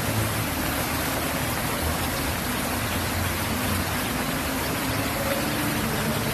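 Steady rushing of water pouring down an outdoor waterfall wall, with a low rumble underneath.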